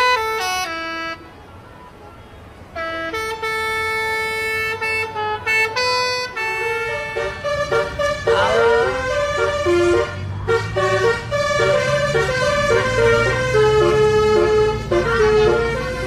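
Bus 'telolet' basuri air horn playing a tune of short, steady notes that step up and down, with a quieter gap about a second in. From about halfway, a low engine rumble runs underneath.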